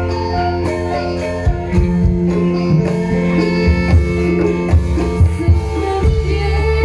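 Live music from the stage ensemble: held pitched notes over a steady bass line, with drum hits coming in about a second and a half in.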